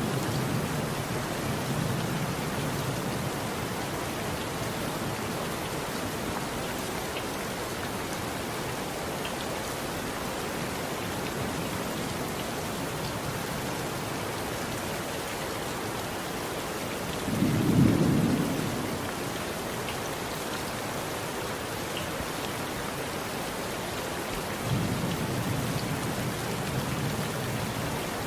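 Steady rain falling, with low rumbles of thunder near the start and near the end and a louder roll of thunder about two-thirds of the way through.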